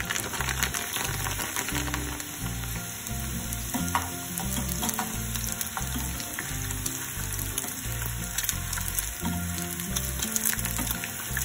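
Sago pearls (sabudana) deep-frying in hot oil in a pan: a steady, dense crackling sizzle, with a wire skimmer stirring through them. Background music with low bass notes plays underneath.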